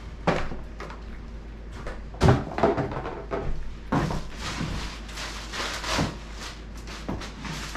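Cardboard shoebox and lid knocked and closed, a few sharp knocks with the loudest about two seconds in, along with high-heel steps on a hardwood floor; from about halfway on, a plastic shipping bag rustles as clothes are pulled out of it.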